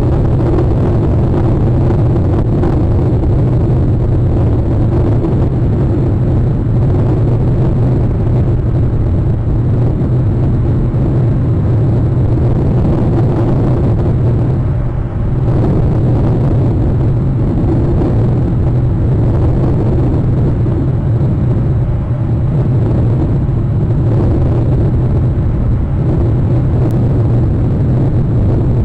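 A loud, steady low rumble with no distinct events, dipping briefly about halfway.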